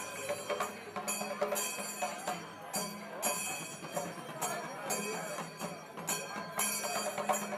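Music with ringing, bell-like percussion that comes back in short bursts about once a second over a steadier low tone.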